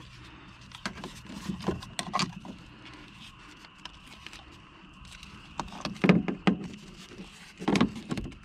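Hands handling and fitting parts and wiring: irregular clicks, taps and light knocks, loudest about six seconds in and again near the end.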